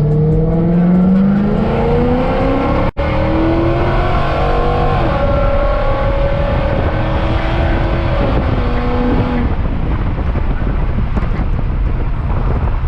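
Infiniti M45's 4.5-litre V8 accelerating hard, its pitch climbing for about three seconds, then rising again and dropping back in steps through about nine seconds before it eases off. What remains is a steady rush of road and tyre noise. The sound cuts out for an instant near three seconds.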